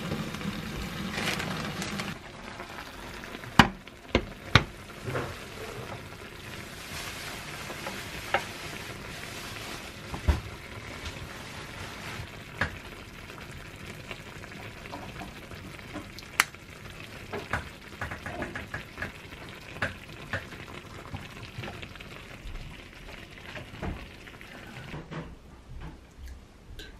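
Food sizzling steadily in a hot earthenware pot (ttukbaegi) of tomato pasta, heaviest in the first two seconds. Scattered sharp clinks and knocks of utensils against the pot run through it.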